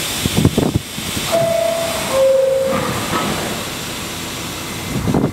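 Kawasaki R68A subway car's door chime, two steady tones with the second lower than the first, followed by a long hiss of air from the train's pneumatic system as it readies to leave. A few knocks come shortly before the chime.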